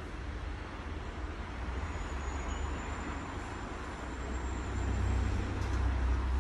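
Steady low rumble and hiss of road traffic, swelling a little near the end, with a faint high-pitched whine for a few seconds in the middle.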